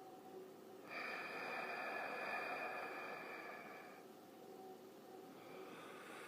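Creepy breathing sound effect: one long, drawn-out breath starting about a second in and fading after about three seconds, then a second breath beginning near the end.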